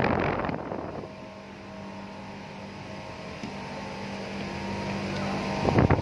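Outdoor air-conditioning condensing units running: a steady mechanical hum with a low, level tone. In the first second, rushing air hits the microphone.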